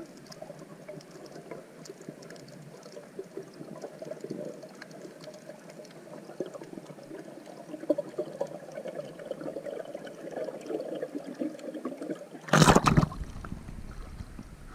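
Water sounds with scattered faint crackling ticks, then a loud brief rush of water about twelve and a half seconds in.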